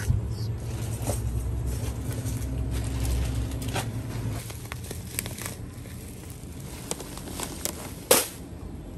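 Scattered crinkles and clicks of hands handling yams on a plastic-covered shelf, over a low steady hum, with one sharper knock about eight seconds in.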